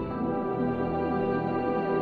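Ambient background music: sustained chords, with a quick run of repeated notes and a low bass coming in right at the start.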